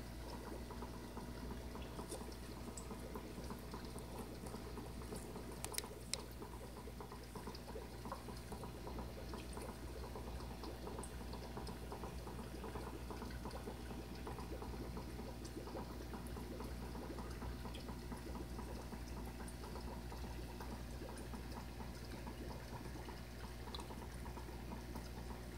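Fish tank's filter running: water trickling steadily over a low hum, with two small clicks about six seconds in.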